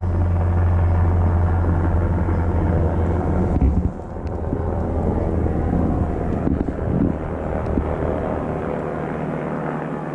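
Helicopter flying low overhead: a loud, steady, deep rotor drone with heavy rumble, strongest for the first few seconds and then a little weaker. It sounds like a military helicopter.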